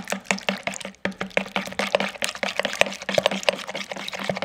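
Eggs being whisked with melted butter and sour cream in a bowl: quick, rhythmic clicks of the whisk against the bowl, several a second, with a wet sloshing of the liquid batter.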